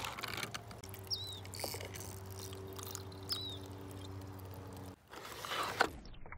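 A steady low mechanical hum made of several even tones, which cuts off suddenly about five seconds in. Two short high bird chirps sound over it, about two seconds apart.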